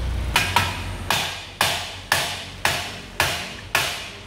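Hammer blows on the front suspension of a BMW E36, knocking the lower control arm's ball joint loose from the steering knuckle. Eight metallic strikes, about two a second, each ringing out before the next; the first two come close together.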